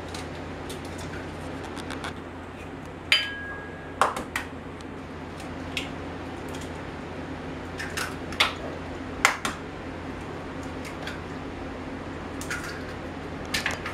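Eggs being cracked into cake batter: a scattered series of sharp taps and clicks, some in pairs, a few seconds apart, over a steady low hum.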